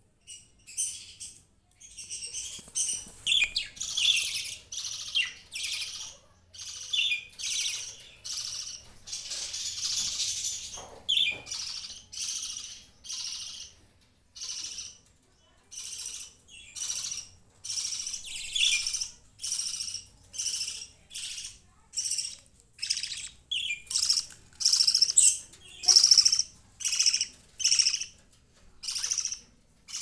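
Budgerigars chirping: a long run of short, high calls, about one a second.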